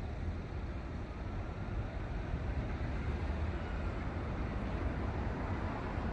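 Steady low rumble with a faint hiss: outdoor urban background noise, with no distinct event.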